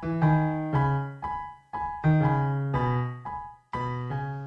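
Intro background music: a piano tune of struck notes and chords, roughly two a second, each ringing and dying away over a low bass note.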